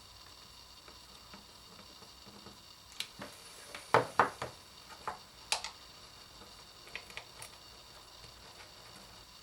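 A handful of sharp clicks and knocks from hard small objects being handled, the two loudest about four seconds in, then a few light ticks, over a faint steady hum.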